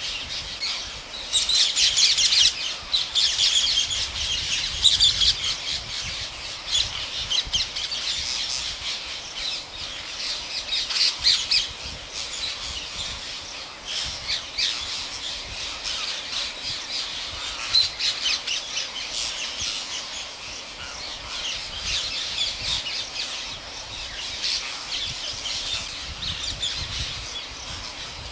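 Green parrot squawking and chattering in quick strings of short calls, loudest about two seconds in and again near the middle.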